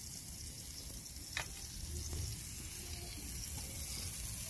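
Shrimp, meat and vegetable skewers sizzling on a grill, a steady hiss, with a single short click about a second and a half in.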